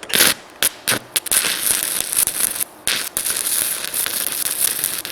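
Stick-welding arc from a VEVOR 110 V welder: a few short sputtering strikes in the first second, then a steady crackle that breaks off briefly near the middle and stops suddenly at the end. The arc is hard to start with the arc force turned down.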